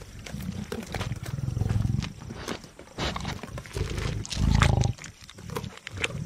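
Lionesses growling as they feed on a kudu bull carcass: a run of low, rough growls, the loudest about four and a half seconds in, with sharp clicks of chewing and tearing between them.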